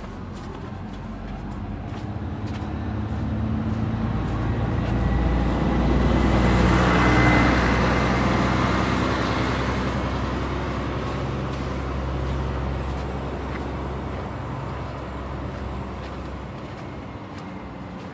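A heavy road vehicle passing close by, its engine and tyres getting louder to a peak about seven seconds in and then slowly fading away.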